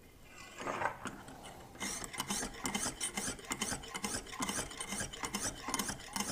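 Lansky 600-grit fine honing stone, oiled, being stroked quickly along a kitchen knife's edge in the controlled-angle clamp. It makes a rapid scraping rasp of several short strokes a second, starting about two seconds in.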